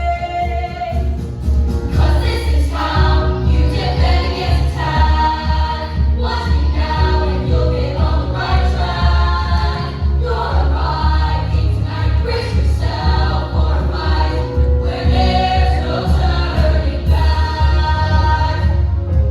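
A group of voices singing a show tune together over instrumental accompaniment with a heavy, steady bass.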